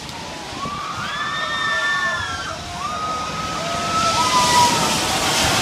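Riders on a giant pendulum swing ride screaming: several long, high screams overlapping about a second in and again about three seconds in, over a steady rush of wind and ride noise.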